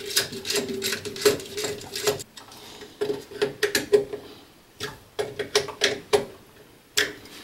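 Small screwdriver tightening a terminal screw on a DIN-rail fuse holder. It makes sharp, irregular clicks and scrapes in quick runs with short pauses between them.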